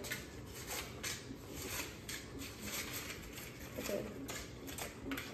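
Paper cupcake liners crinkling as they are pulled apart from a stack: a run of light, quick crackles. A brief voice comes in about four seconds in.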